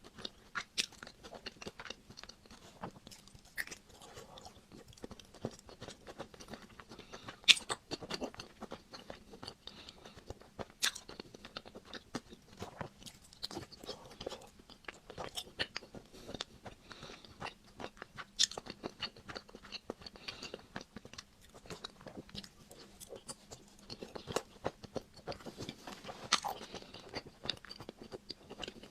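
Crisp bites and chewing of a Magnum ice cream bar, its chocolate shell cracking in sharp snaps with crunching in between. The loudest snap comes about seven and a half seconds in, and further snaps are scattered through the rest.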